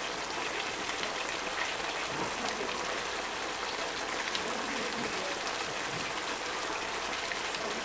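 Chicken curry sizzling in a pan: a steady crackling hiss with many small pops.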